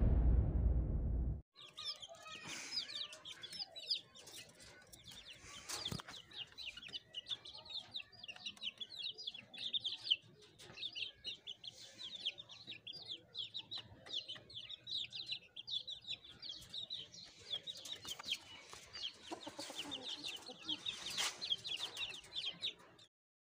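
The tail of the intro whoosh fades out over the first second and a half. Then young Aseel chickens are peeping: a long, fast run of short, high chirps, several a second, that stops shortly before the end.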